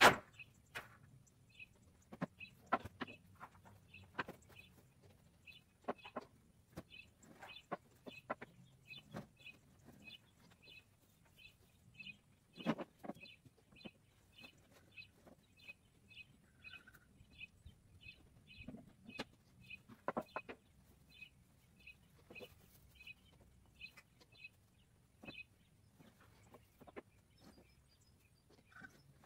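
Square hay bales being tossed from a truck bed and dropped onto a stack, a scattered series of dull thumps and rustles. Behind them a short high chirp repeats steadily about twice a second.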